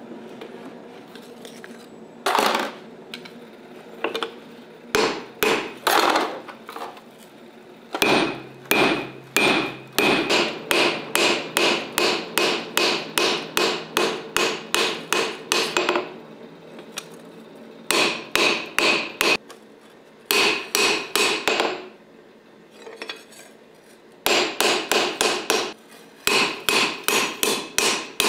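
Hammer-like strikes in quick runs of about three to four blows a second, each leaving a short ringing tone, with brief pauses between the runs.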